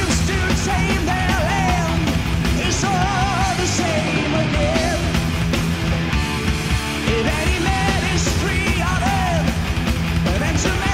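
Heavy metal band playing live: distorted electric guitars, bass and drums, with a high wavering melody line on top.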